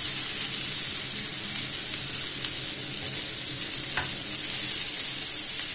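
Sliced zucchini, carrots and bell peppers sizzling steadily in oil in a frying pan, with a single light knock about four seconds in.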